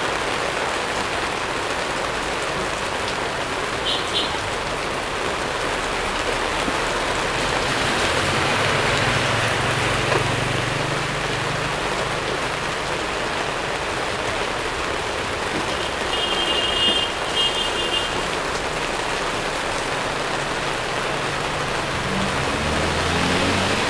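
Heavy rain falling steadily on the stall's tent roof. A low rumble swells and fades from about eight to eleven seconds in.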